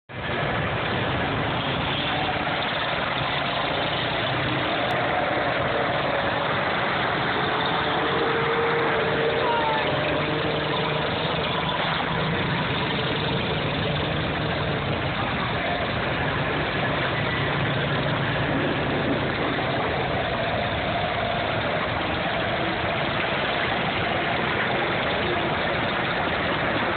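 Engines of a line of vintage farm tractors running as they drive slowly past, a steady engine noise throughout.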